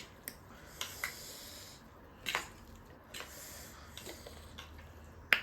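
Scattered light clicks and taps of utensils against dishes and food, with the sharpest click near the end.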